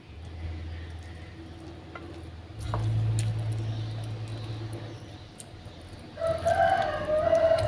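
A rooster crowing: one long crow begins near the end, over a low steady hum.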